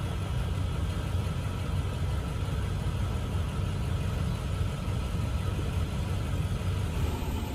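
A car engine idling: a steady low rumble.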